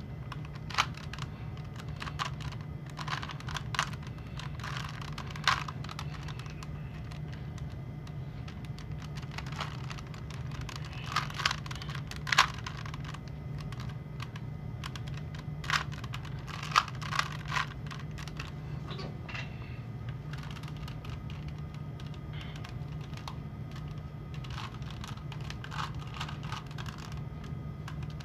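Plastic clicks and clacks of a Rubik's cube being turned, coming in irregular clusters with short pauses between them, over a steady low hum.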